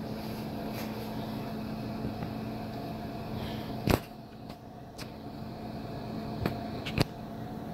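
Steady mechanical hum of a running kitchen appliance, with a low steady tone in it. A sharp tap about four seconds in and two lighter taps near the end.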